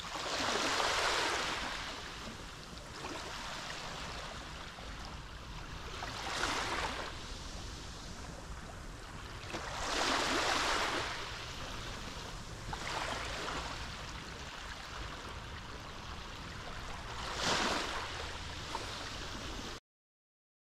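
Small Mediterranean waves breaking and washing in every few seconds, each a swelling rush of surf over a steady low rumble. The sound cuts off abruptly near the end.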